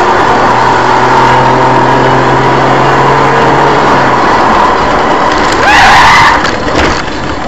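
Car driving, heard from inside by a dashcam: steady road and engine noise with a low hum that stops about four seconds in. About six seconds in comes a brief, loud squeal that bends up and down, followed by a few sharp knocks.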